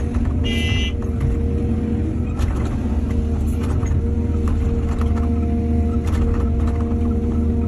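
Excavator's diesel engine running steadily, with a few faint knocks and a brief high squeal about half a second in.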